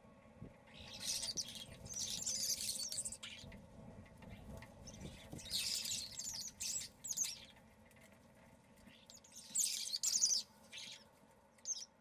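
Common starlings chattering in three main bursts of a second or two, with a short extra call near the end, high and scratchy with whistled notes mixed in.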